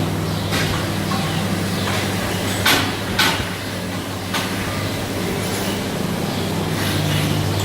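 Rotary milking parlour machinery humming steadily. Two short, sharp hisses of air come about half a second apart near the middle.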